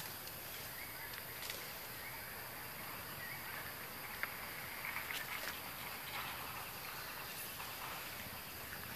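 Forest ambience with a steady high insect drone, a few faint short chirps, and several small clicks or rustles.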